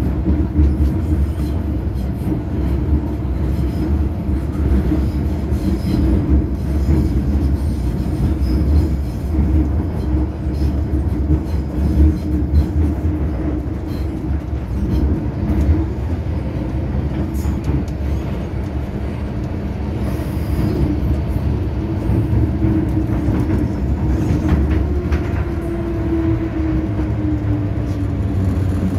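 Inside a moving MTR M-Train (Metro-Cammell electric multiple unit): steady rumble of wheels on rail and running gear. In the last few seconds a falling whine sets in as the train slows into a station.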